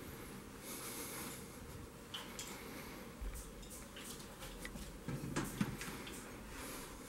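Wooden cupboard door being opened, a few knocks and clicks about five seconds in, over quiet room tone and faint handling noise.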